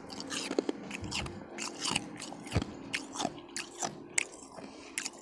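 A person biting and chewing refrozen powdery ice: a quick run of sharp crunches, about three a second, over a faint steady low hum.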